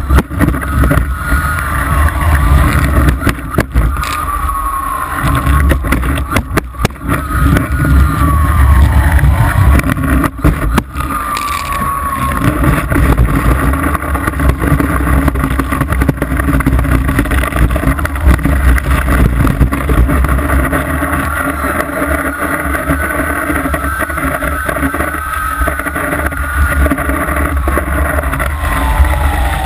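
Water ski cutting through lake water: rushing water and wind buffeting a camera mounted on the ski tip. A motorboat engine's whine runs underneath, rising and falling in pitch, and a few sharp splashes hit the camera.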